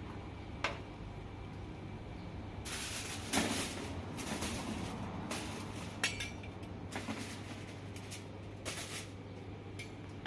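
Metal skimmer and spoon clinking and scraping against a large aluminium cooking pot as boiled goat meat is lifted out, with short rustling bursts from the aluminium foil the pieces are laid on. A steady low hum runs underneath.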